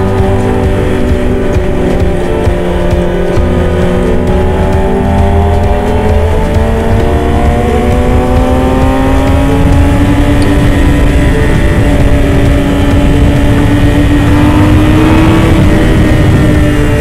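Yamaha R6 sport bike's inline-four engine pulling hard at highway speed, its pitch rising steadily for about ten seconds from a third of the way in before levelling off near the end, with wind rushing over the microphone.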